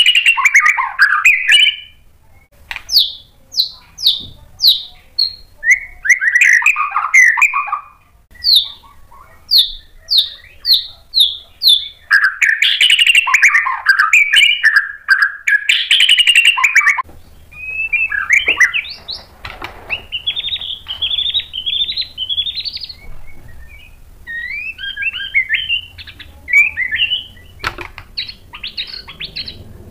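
Caged male white-rumped shama (murai batu) singing loud, varied phrases with short pauses between them. Some phrases are runs of repeated downward-slurred whistles, and others are fast warbled passages.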